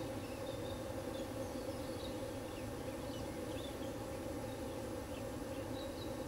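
Outdoor field ambience: a steady low hum, with scattered faint high chirps from small creatures throughout.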